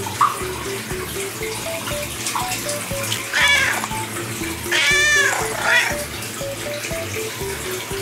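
Ginger-and-white domestic cat meowing three times about halfway through, the middle meow the longest and loudest, over light background music of short, quick notes.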